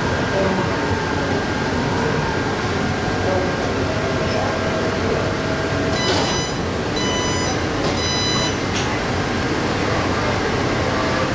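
Steady running noise heard inside a metro train car. About six to nine seconds in come three short groups of high-pitched ringing tones.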